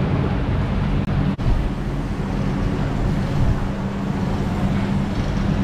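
Steady low hum with a rushing noise over it, the drone of fans and ventilation in a large indoor space, dipping out sharply twice just over a second in.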